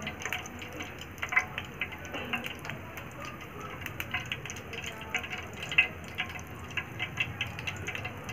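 Hot frying oil sizzling and crackling around a small piece of dough dropped in to test the heat, with irregular pops; the bubbling shows the oil is hot enough to fry.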